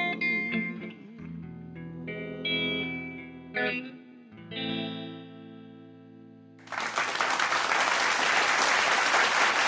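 Les Paul electric guitar playing a closing run of single notes, ending on a chord that rings and fades. About seven seconds in, loud applause breaks out and keeps going.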